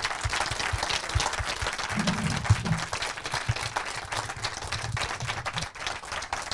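Audience applauding: many hands clapping, with a brief voice about two seconds in.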